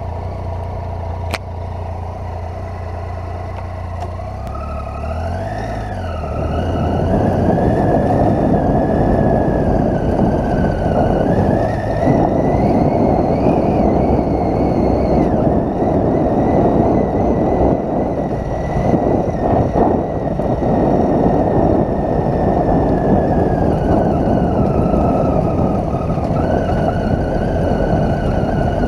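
Triumph Tiger 800's three-cylinder engine idling steadily, revving briefly about five seconds in as the bike moves off. For the rest it runs under load at varying speed over a loose stony track, with a steady rush of wind and tyre noise.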